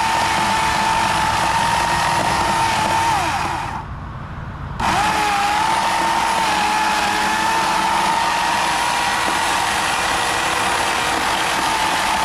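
An engine running steadily with a high whine over a broad mechanical noise. About three seconds in, its pitch sags and the sound drops away for about a second, then comes back abruptly and runs steady again.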